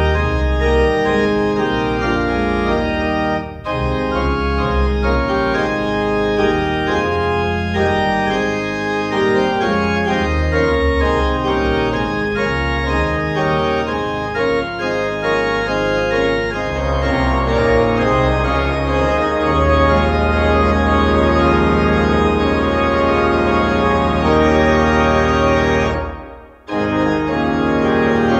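Church organ played on manuals and pedals: sustained chords over deep held bass notes. The sound drops away briefly near the end, then the playing resumes.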